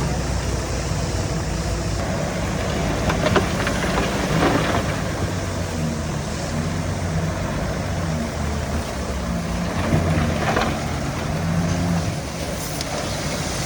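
Heavy diesel engine of construction machinery running, its pitch stepping up and down as the load changes, with a few knocks about three, four and ten seconds in.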